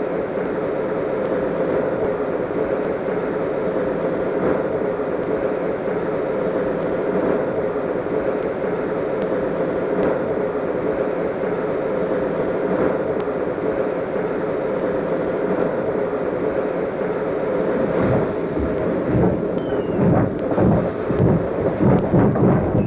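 Steam locomotive Flying Scotsman with a steady, loud rush of escaping steam. From about eighteen seconds in, uneven exhaust beats start and grow as the engine moves off.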